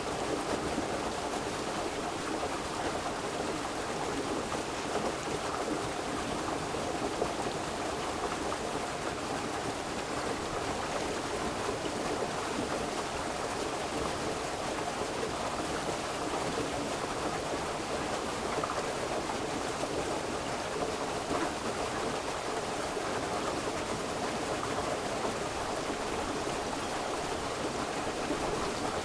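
River water flowing steadily, a continuous rushing babble with no breaks or changes.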